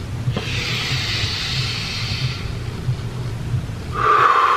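A person taking a long, deep breath for about two seconds, heard as a soft hiss of air, as part of a slow calming breathing exercise. Near the end a louder sound falls in pitch.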